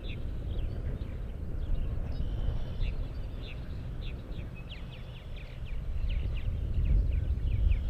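Birds chirping, many short calls in quick succession, over an uneven low rumble that grows louder near the end.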